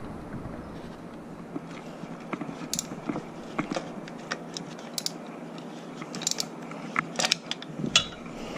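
Scattered light clicks and taps of hands and tools working at a motorcycle's oil filter, coming more often in the second half.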